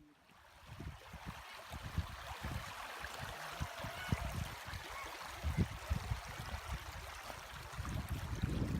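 Flowing water of the Smith River rushing steadily, growing louder from about half a second in and again near the end, with irregular low thumps underneath.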